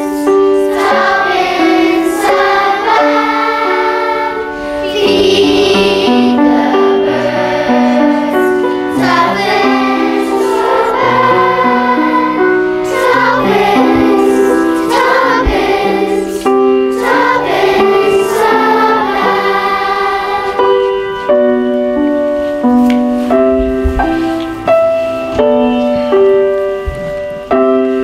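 Children's choir singing a song with keyboard accompaniment; about three-quarters of the way through the voices stop and the piano carries on alone with a few spaced notes.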